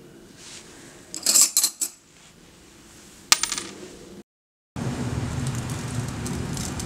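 A coin dropped onto a tabletop, clattering for about a second, then one sharp clink with a short ring. After a brief silence, a steady rushing noise with a low rumble begins.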